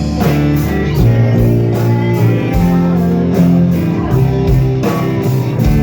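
Music: a guitar-led track with a bass line and a steady beat.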